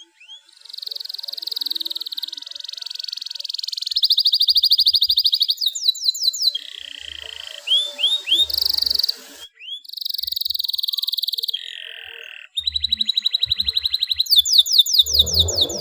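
Domestic canary singing in breeding condition: a long, continuous song of fast rolling trills, with runs of rapid rising notes and two brief pauses.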